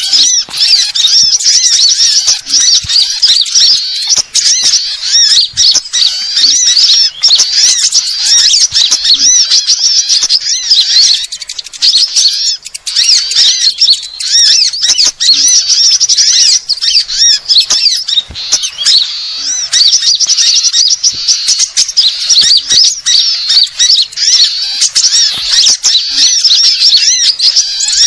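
Bird-luring recording: a loud, dense mix of many small songbirds' high-pitched chattering and twittering calls, kept up almost without pause, used to draw small birds such as sunbirds in for trapping.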